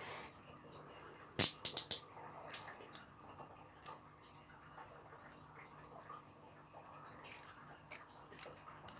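Metal handcuffs clicking as they are handled: a quick run of sharp clicks about one and a half seconds in, then a few single clicks and faint light ticks.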